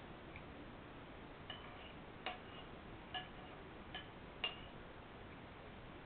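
A spoon clinking against a bowl while eating: five light clinks with a short ring, spread over about three seconds, the last the loudest.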